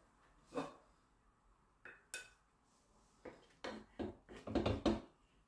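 Wooden spatula knocking and scraping against a frying pan and a plate as cooked shrimp is dished out: a string of short separate knocks that come thicker towards the end.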